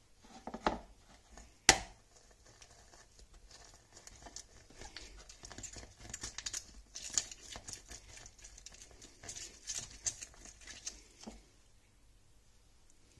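Half a lemon pressed and twisted by hand on a plastic manual citrus reamer: a dense run of wet crackling for several seconds that stops shortly before the end. In the first two seconds, two sharp knocks, the second the loudest.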